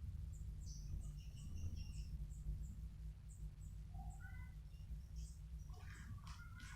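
Faint chirping of small birds: short high notes repeated every fraction of a second, with a few lower calls partway through, over a steady low rumble. A brief patch of quick rustling or clicking comes near the end.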